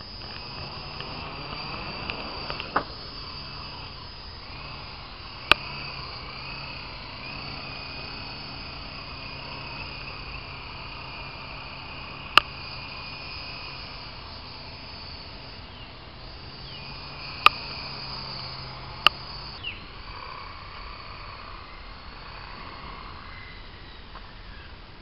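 R/C model helicopter running overhead, a steady whine with a low hum underneath that wavers in pitch as it flies, then stops about three-quarters of the way through as it comes down. Several sharp single clicks stand out above it.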